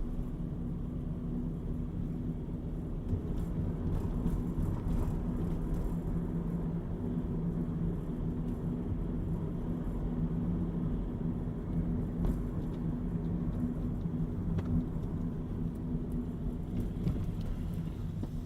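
Car engine and road noise heard from inside the cabin while driving: a steady low hum and rumble.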